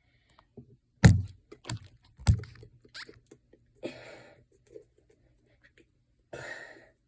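Handling bottles of acrylic craft paint while pouring and mixing: a few sharp knocks and clicks, the loudest about a second in and a little after two seconds, then two short scraping sounds.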